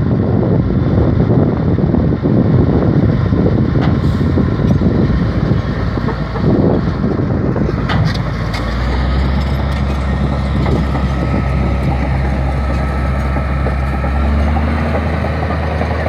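Komatsu D155A crawler bulldozer's diesel engine running close by. For the first half the sound is a rough, noisy rumble; about halfway through it settles into a steady low drone.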